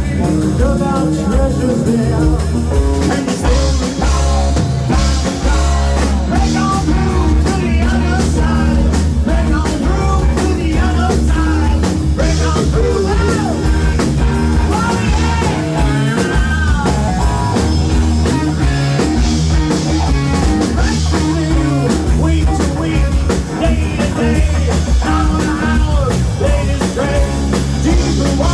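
Live band playing a rock song with a singer, backed by a drum kit and a strong bass line.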